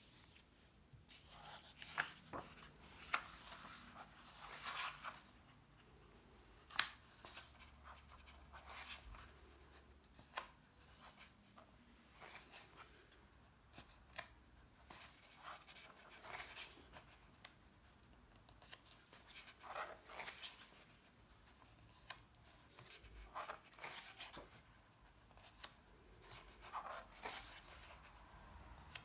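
Pages of a hardcover book being handled and turned by hand: faint paper rustles and soft flaps every second or two, with a few sharper clicks among them.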